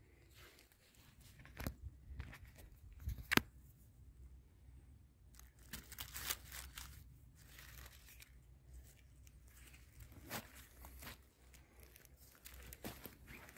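Close rustling and crackling of dry needle litter, grass and twigs as a mushroom is cut from the forest floor with a knife, with irregular sharp snaps, the loudest a little over three seconds in.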